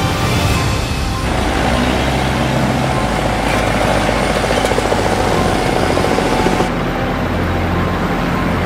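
Helicopter rotor and turbine sound, steady and loud, with a fast even pulsing of rotor chop through the middle; the sound turns duller about seven seconds in.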